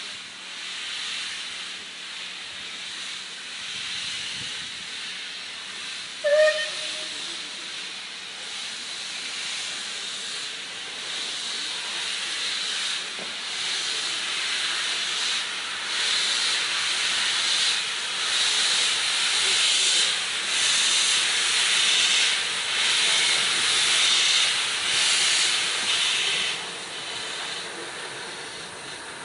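Two steam locomotives, one of them 35006, moving slowly tender-first and hissing steam from around the cylinders in uneven pulses that grow louder as they draw close, then ease off near the end. A short steam whistle toot comes about six seconds in.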